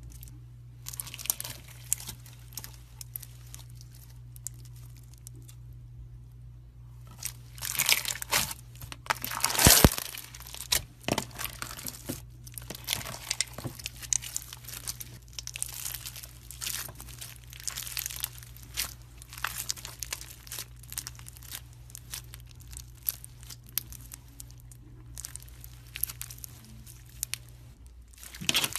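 Slime being pressed and worked by hand, giving a dense run of small crackling and crunching sounds, loudest in a cluster about eight to ten seconds in, over a steady low hum that stops near the end.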